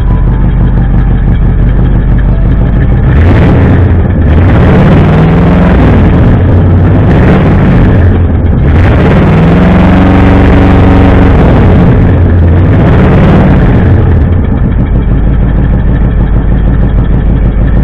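Ford 351 Cleveland V8 in a 1964 Ford F100 idling, then revved up and let back down twice before settling back to idle about three-quarters of the way through. It runs rough with a misfire that sounds like one cylinder, maybe two, out.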